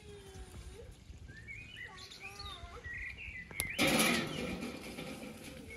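Small birds chirping, then about two-thirds of the way in a large stainless steel bowl is set down onto an iron fire stand with a sharp knock, followed by about a second of rushing noise.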